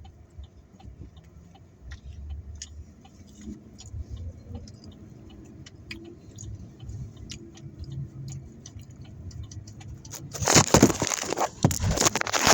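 Small clicks and handling noises of eating, then about ten seconds in a loud crackling rustle of paper food packaging lasting a couple of seconds.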